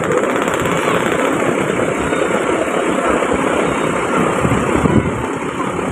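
Bus engine idling, a loud, rough, uneven rumble.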